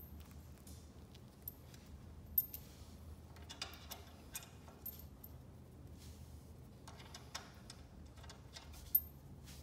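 Metal bolts clicking and rattling against the track drive hub of an Altoz TRX mower as they are handled and started in by hand: scattered light clicks, the sharpest about two and a half seconds in and near the end, over a faint low hum.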